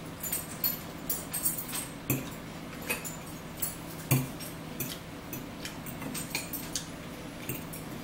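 Forks clicking and scraping against plates and bowls during a meal, with close chewing and mouth sounds, and two louder knocks about two and four seconds in. A steady low hum runs underneath.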